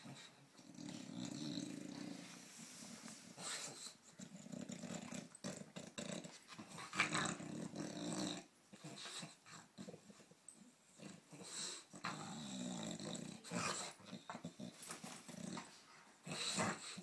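British bulldog growling in repeated bouts while it mouths and tugs a plush cow toy; this is play growling, not aggression. Short scuffing noises come between the growls.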